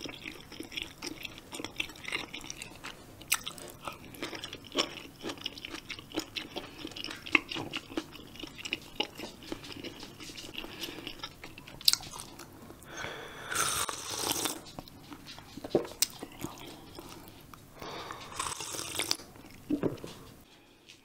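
Close-miked chewing of crunchy food, likely yellow pickled radish (danmuji): a dense, wet crackle of bites and chews for about twelve seconds. In the second half come two longer, louder sounds of about a second and a half each, as broth is drunk from the bowl.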